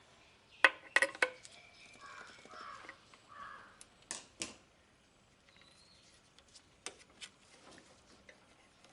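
Metal tools and hardware clinking and knocking as a wrench and bolts are handled to fit a car horn. There are sharp clinks about a second in, again a little past four seconds and near seven seconds, with a few short harsh rasping sounds in between.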